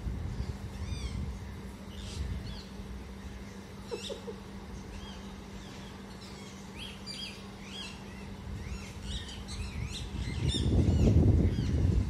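Parrots calling in short, sharp, repeated chirps, over a steady low hum. Near the end a loud low rumble sets in.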